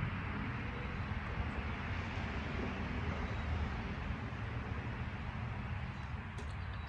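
Wind buffeting the microphone outdoors: a steady rushing noise with an uneven low rumble.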